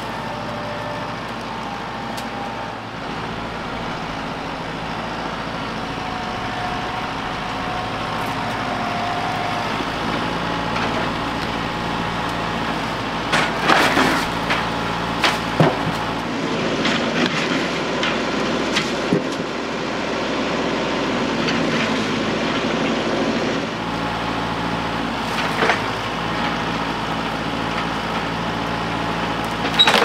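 Compact tractor engine running steadily while its front-loader grapple grips and pulls a leaning tree. Wood cracks and knocks sharply several times about halfway through, with a few more knocks later.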